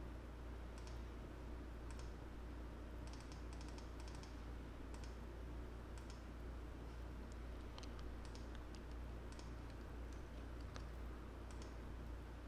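Faint, irregular clicks of a computer mouse and keyboard, some in quick clusters of two or three, over a steady low hum.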